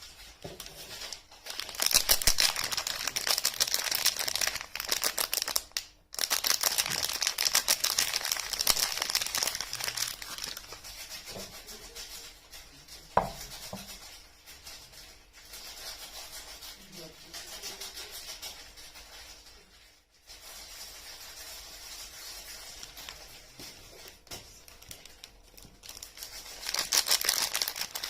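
Soap wrappers crinkling and tearing as bars are unwrapped, close to the microphone, in loud spells with quieter handling between. A single sharp knock about thirteen seconds in.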